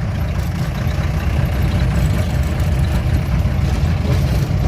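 Off-road vehicle driving along a forest track: a steady low rumble of engine and road noise.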